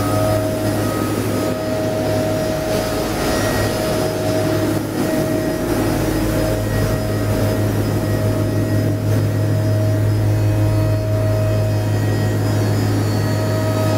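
WFJ-8 super micro mill running steadily while grinding beans into fine powder: an even, loud machine hum with a steady higher tone over it.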